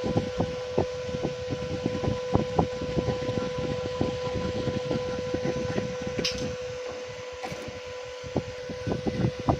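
Irregular low knocks and taps from desoldering work on a phone's charging-jack pads with a soldering iron and solder wick, over a steady high-pitched hum. A brief hiss comes about six seconds in.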